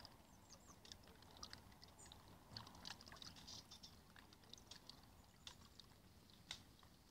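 Near silence: outdoor room tone with faint, scattered small clicks and ticks.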